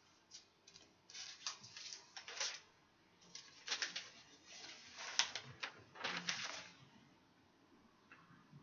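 Paper pages rustling as they are leafed through and turned, in a string of short, faint rustles with brief pauses between them.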